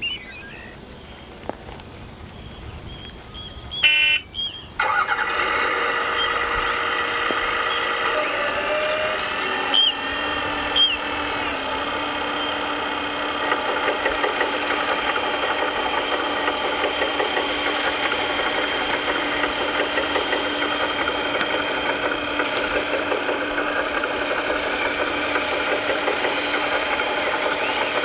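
A 1/14-scale RC construction machine starting up about four to five seconds in, after a few clicks. It then runs steadily with an engine-like drone and a high, steady electric whine.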